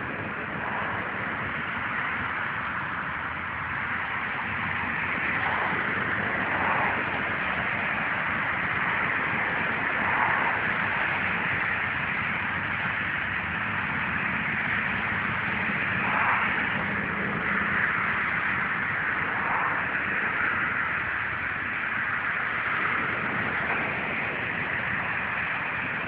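Steady hiss of distant road traffic, swelling faintly now and then.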